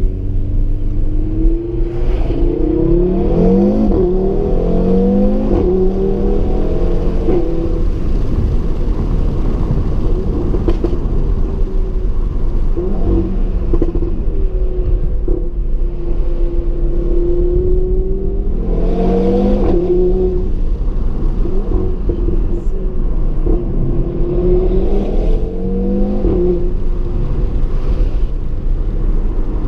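Audi TT RS's turbocharged five-cylinder engine under way. It revs up through several gears with rising pitch, settles into steady running, and pulls hard again about two-thirds of the way through and near the end. A steady low road rumble runs under it.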